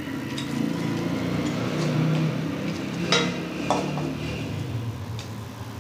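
A metal spoon clinking against a glass bowl and a steel pot as fried pakoras are pushed off into thick kadhi. There are a few sharp clinks, the loudest about three seconds in, over a low steady hum.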